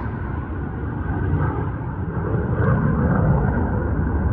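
Steady low rumble of wind and water noise on the microphone of a kayak under way.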